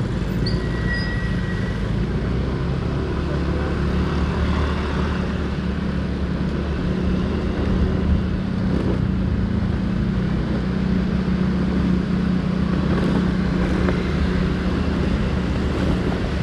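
Motorcycle engine running at a steady, even pace while riding, with road and wind noise.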